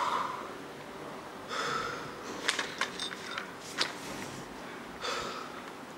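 Quiet small-room tone with a couple of soft breathy sounds and a few small clicks.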